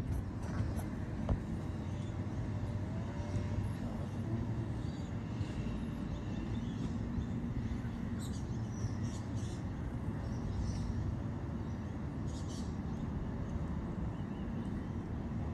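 Steady low engine rumble of a vehicle, with a few faint high chirps in the middle stretch.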